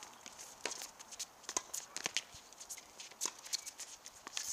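Tennis rally on a hard court: a scattered series of sharp pops and clicks of the ball off the rackets and bouncing on the court, some faint and some louder.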